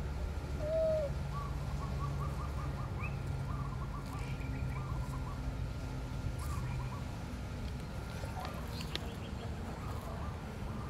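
Birds calling: one short falling call about a second in, then runs of quick small chirps, over a steady low rumble.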